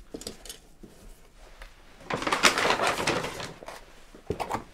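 A wooden food tray and cloth napkin being handled: a few light knocks, then a loud rustling scrape of about a second and a half, then a couple of sharp knocks near the end.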